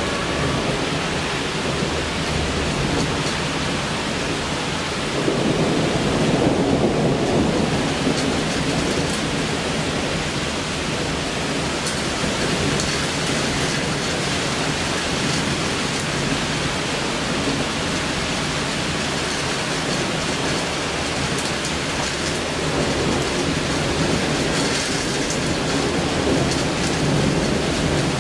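Heavy rain of a bow-echo thunderstorm falling steadily, with thunder rumbling over it, loudest about five to eight seconds in and again near the end.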